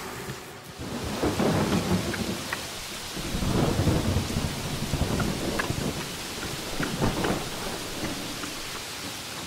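Heavy rain falling with rolling thunder; deep rumbles swell about a second in, again near the middle, and once more around seven seconds.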